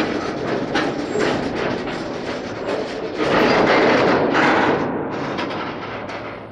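Freight train's wagons rolling on the track, the wheels clattering over rail joints in a run of clicks. It is loudest a little past halfway, then dies away near the end.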